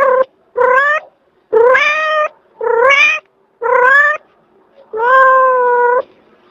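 A domestic cat meowing over and over, about one call a second, each meow rising slightly in pitch. The last meow is longer and held steadier.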